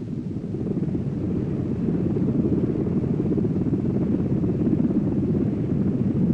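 Helicopter rotor and engine noise: a steady low rumble that swells in over the first couple of seconds and then holds.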